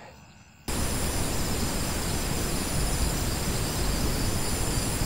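Crickets trilling faintly. Less than a second in, a loud, steady hiss cuts in abruptly and covers everything, with the crickets' high trill still audible above it.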